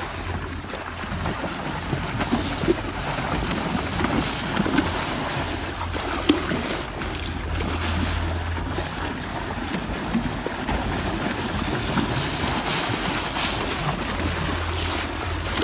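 Water rushing and splashing along the hull of a moving boat, with wind buffeting the microphone and a low steady hum underneath.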